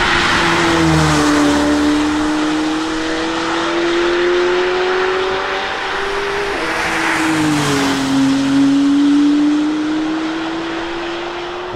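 McLaren 750S twin-turbo V8 accelerating hard up a wet road: the engine note climbs steadily, drops at an upshift about seven seconds in, then climbs again as the car pulls away. A hiss of tyres on wet tarmac runs under it.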